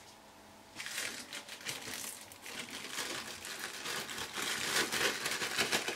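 Plastic cling film crinkling and crackling as hands unwrap it from a ball of rested pasta dough, starting about a second in and going on irregularly.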